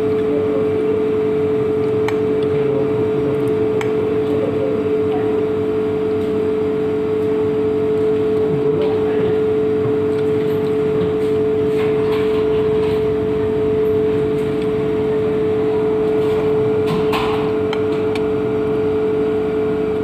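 Loud, steady machine hum with one strong, unchanging pitch and fainter tones around it, with a few faint clinks of a metal spoon against a plate.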